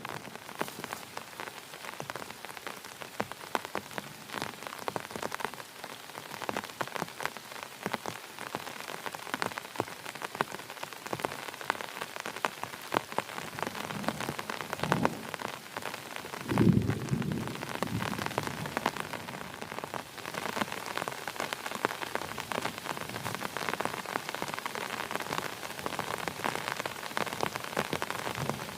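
Heavy rain falling steadily, with many separate drops striking close by. About two-thirds of the way through, a short low rumble or thump briefly stands out as the loudest sound.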